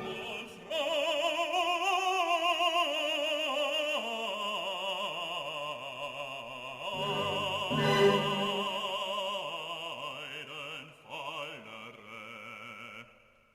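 Background music: a high operatic voice singing long held notes with a wide vibrato, ending abruptly near the end.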